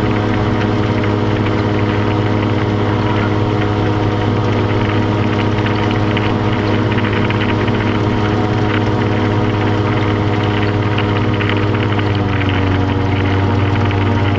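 ATV engine running at a steady speed, its note dropping slightly about twelve seconds in as the throttle eases.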